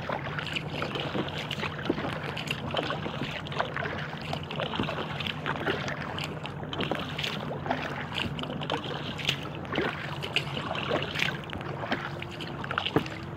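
Water lapping and dripping around an inflatable kayak under way, in many small irregular splashes and ticks over a steady low hum.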